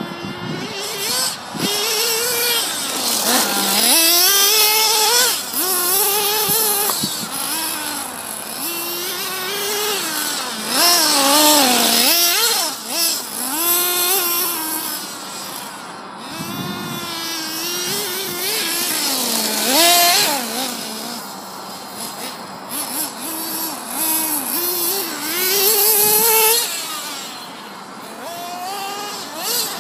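Small nitro engine of a Losi 2.0 RC buggy being driven hard, revving up and down again and again. Its pitch keeps climbing and dropping with the throttle, with a few short lifts off the gas.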